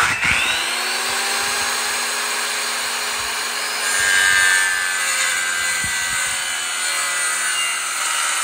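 Electric power saw cutting a wooden board: the motor starts abruptly with its pitch rising as it spins up, runs steadily, and gets louder about four seconds in as the blade bites into the wood.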